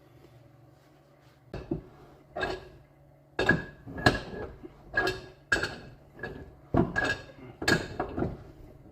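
Metal clinks and knocks, about a dozen roughly every half second, starting about a second and a half in: metal tools working on plumbing fittings.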